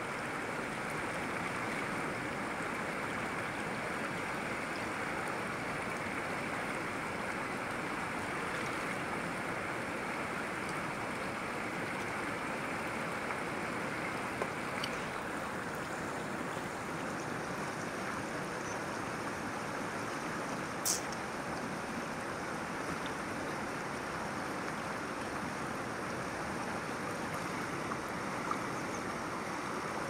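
Rushing mountain river running fast over rocks, a steady rush of water. A few small knocks sound over it, the clearest about two-thirds of the way through.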